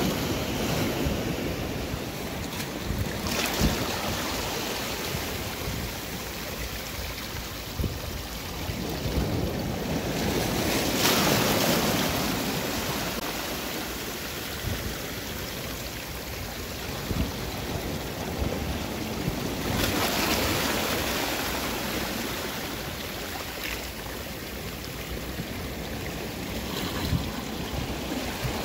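Sea waves washing over shoreline rocks, surging and draining back in swells every several seconds, with wind buffeting the microphone and a few short knocks.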